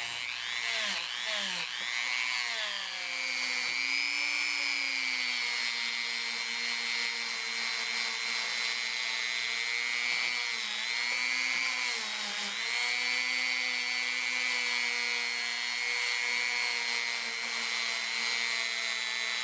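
Dremel rotary tool spinning a small wire brush against the corroded steel tang of an old screwdriver, scrubbing off rust. A steady high motor whine that wavers for the first few seconds and dips briefly twice around the middle as the brush bears down.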